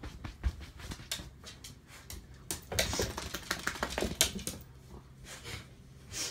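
Small wet dog rubbing and rolling on a terry towel on a wooden floor to dry off: quick clicks of claws with rustling of the towel, busiest about halfway through.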